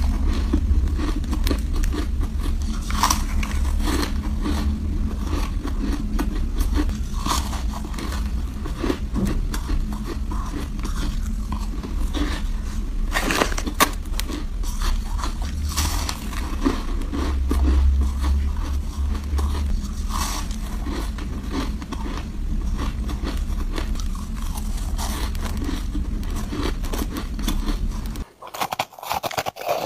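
Powdery shaved-ice blocks being bitten and chewed, giving a run of crisp crunches and crackles over a steady low rumble. Near the end the rumble cuts out and the crunching goes on more quietly.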